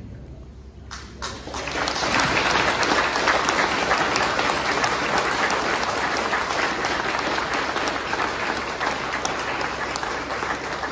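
Crowd applauding, starting about a second in, swelling quickly, then easing off near the end.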